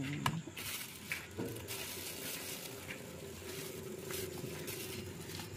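Steady hiss of a pot of meatball broth simmering on the cart's burner, with a few light knocks of a metal strainer ladle against the pot near the start.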